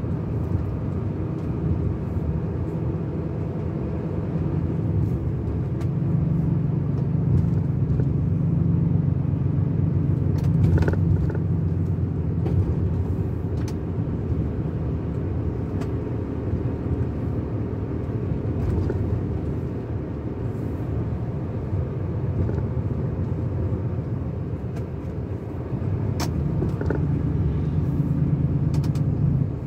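Car driving along, heard from inside the cabin: a steady low rumble of engine and tyre noise, with a few brief clicks around the middle and near the end.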